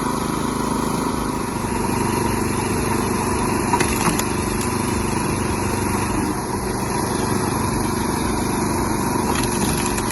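Small petrol engine of a log splitter running steadily at constant speed, with a thin steady whine above it.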